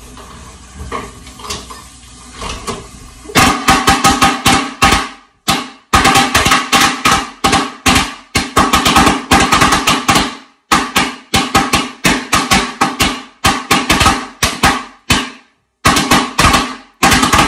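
A long string of firecrackers going off indoors: a rapid crackle of sharp, very loud bangs, several a second, echoing in the room. It starts about three seconds in and runs on with a few brief breaks.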